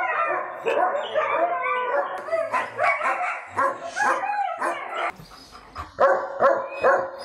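Several dogs barking in many short, overlapping calls. After about five seconds, a steady run of barks, about three a second.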